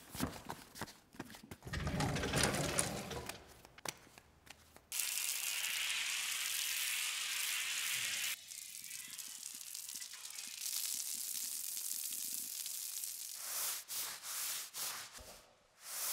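Clicks and scuffs of footsteps at first, then water running from a hose for a few seconds. Near the end come repeated strokes of a deck brush scrubbing a wet tiled floor.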